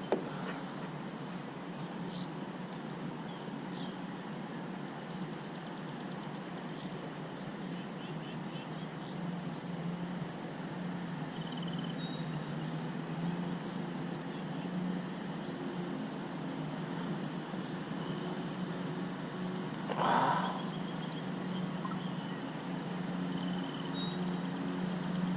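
Creekside outdoor ambience: a steady low background rush with scattered short, high bird chirps, and one brief louder sound about twenty seconds in.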